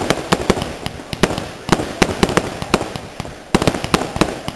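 Fireworks display: shells bursting in quick, irregular succession, several sharp reports a second over a crackling hiss. A brief lull ends about three and a half seconds in with a dense fresh volley.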